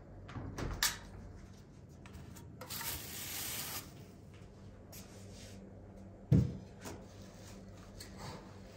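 Kitchen handling sounds: a few soft knocks near the start, a rustling hiss about three seconds in, and a sharp thump, the loudest sound, a little past the middle, followed by a couple of lighter knocks.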